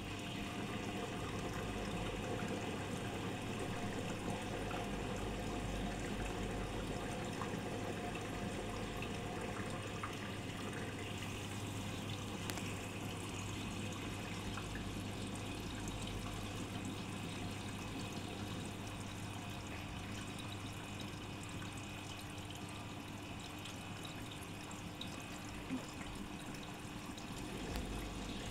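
Arcelik 7103 front-loading washing machine filling with water: a steady rush of water running into the still drum, with a steady low hum underneath.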